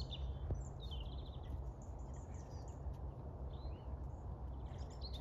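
Small birds chirping in short scattered calls, one of them a quick trill, over a steady low outdoor rumble.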